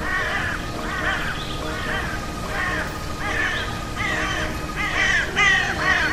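Background music with a short call that rises and falls, repeated about every two-thirds of a second over steady held tones.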